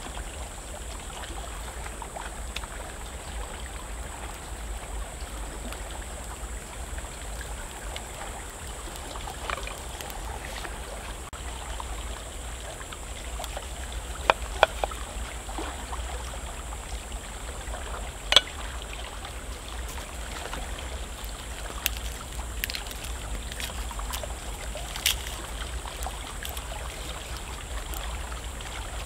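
Steady rushing of a nearby stream, with a handful of short sharp clicks and taps scattered through it.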